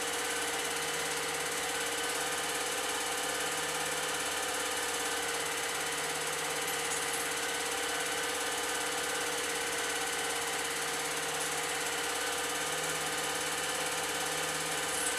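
An old 8mm film projector running steadily, its motor and film-advance mechanism making a continuous mechanical whir.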